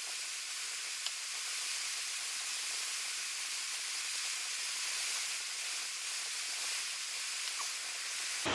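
A steady hiss, with a faint tick about a second in.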